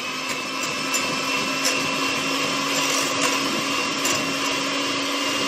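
Electric mixer running steadily, beating cream cheese in a bowl, with a constant motor hum and whine and a few light ticks.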